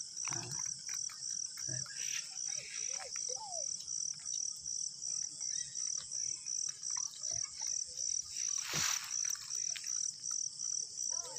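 Night insects chirping in a steady high-pitched pulse about three times a second. Once, late on, a single thump.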